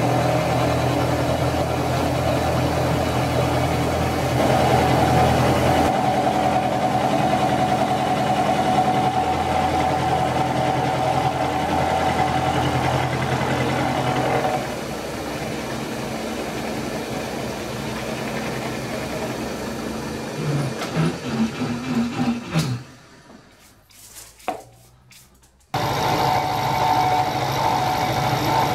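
Bridgeport-style milling machine cutting a metal plate with a carbide insert cutter, a steady grinding cutting noise with a held tone. About halfway through it drops to quieter running, a few knocks follow, then a brief near-silent gap, and near the end a cut with an end mill starts up.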